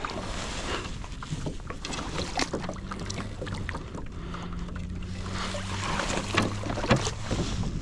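Scattered knocks, rustles and water sounds on a fishing kayak as a large redfish is netted and brought aboard, over a steady low wind rumble.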